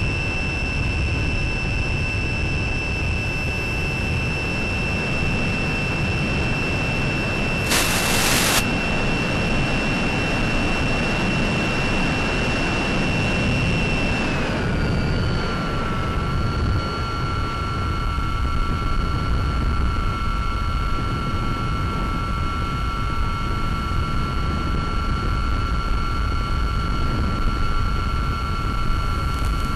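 Brushless motor and 8x6 propeller of a Mini Talon FPV plane in cruise, heard through the onboard camera microphone: a steady high whine over rushing wind that steps down in pitch about fifteen seconds in as the throttle is eased back. A brief burst of hiss comes about eight seconds in.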